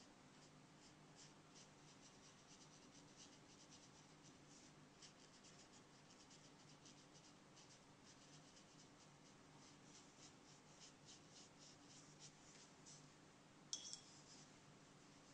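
Faint, scattered strokes and dabs of a paintbrush on watercolour paper, over a faint low hum. Near the end there is one short, sharper ringing tap.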